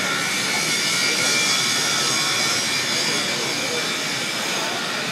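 Steady rushing noise of ventilation fans and air handling in a large steel hangar deck, with visitors' voices murmuring underneath.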